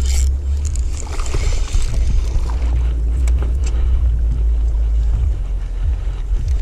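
Wind buffeting the microphone on an open bass boat: a steady low rumble, with a few light clicks between about one and four seconds in.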